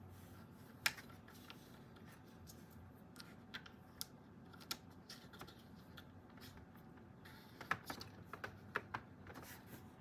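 Faint, irregular clicks of hard plastic fischertechnik parts as a 40-tooth gear and its hub fittings are handled and pressed onto a metal axle, with a run of clicks near the end.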